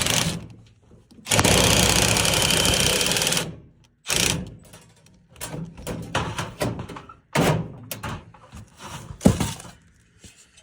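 A power tool running hard on sheet metal in two bursts, then a series of knocks and clatters of sheet metal being handled and fitted.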